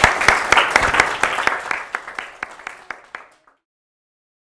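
Audience applause with many hands clapping, thinning out and fading away about three seconds in.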